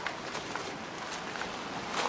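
Footsteps of people walking on a hiking trail: a few scattered short scuffs over a steady outdoor hiss.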